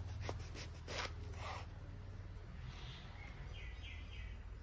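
Kitchen knife slicing breadfruit on a cutting board: a few faint cuts in the first two seconds.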